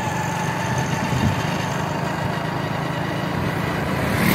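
Small motorcycle engine running steadily on the move, with a short burst of noise near the end.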